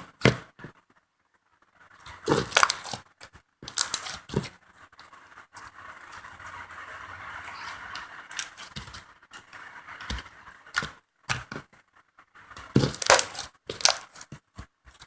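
Soft homemade slime being squeezed and stretched by hand, giving irregular sticky crackles and pops.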